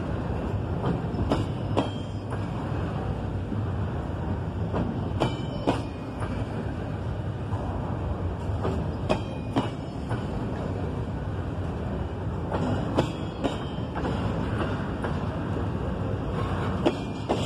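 Double-stack intermodal train of TTX well cars rolling past, a steady low rumble with pairs of wheel clacks about half a second apart every few seconds as each car's wheels cross the track, some with a brief metallic ring.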